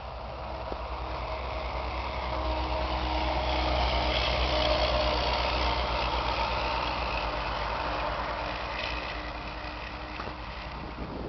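Engine of a passing motor vehicle, growing louder to a peak about four to five seconds in and then fading.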